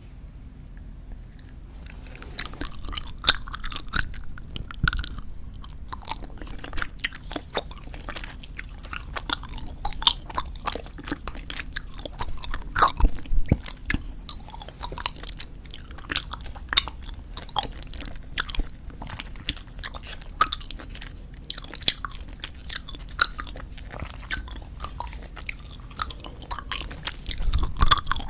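Close-miked chewing of squeeze-tube bubble gum: a continuous run of quick, irregular mouth clicks and smacks, starting after a brief lull.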